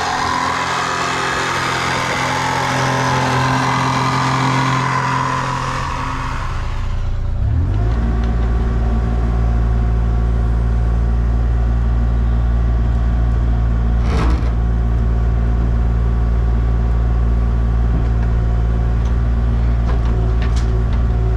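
Heavy equipment engine, most likely the excavator's, running steadily with a low drone. For the first six seconds or so a loud hiss lies over it, then cuts out and the engine drone takes over. There is a single sharp knock partway through.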